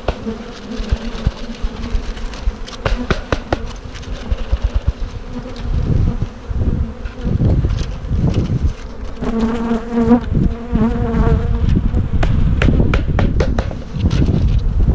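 Package honeybees buzzing as the wooden package box is knocked and tapped repeatedly to shake the bees out into the hive. The buzz swells into a steady hum about nine seconds in, over a low rumble on the microphone from about six seconds in.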